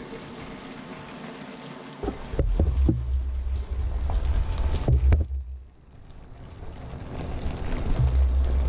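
Low rumbling buffeting on the microphone, with several sharp metallic clinks of a pot lid and steamer basket about two to five seconds in.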